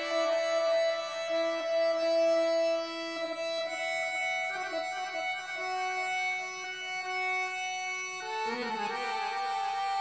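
Music: long held notes in a reedy, organ-like tone, shifting pitch every few seconds. About eight and a half seconds in, a wavering, trilling line comes in underneath.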